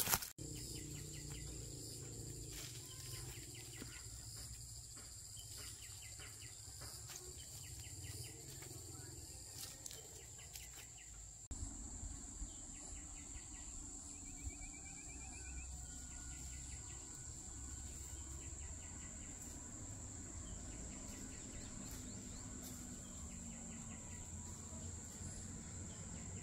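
Outdoor ambience of insects droning steadily on one high note, with rows of short, quickly repeated chirps and a brief bird-like trill about halfway through. A sharp knock sounds right at the start.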